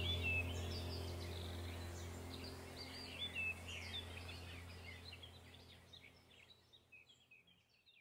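Many small birds chirping and twittering over a low steady drone, the whole fading out gradually.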